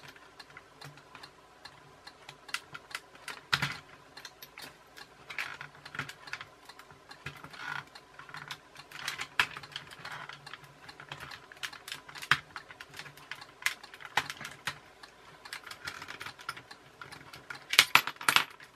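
Small metal screwdrivers clicking, tapping and scraping against a plastic toy-car gearbox casing while prying its snap-in clips apart, in irregular clicks with a louder flurry near the end.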